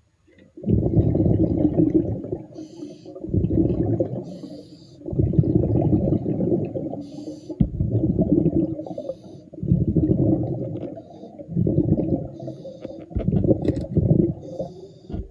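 A diver breathing underwater through a regulator: a rumbling burst of exhaled bubbles about every two seconds, seven in all, with a short hiss of inhalation between them.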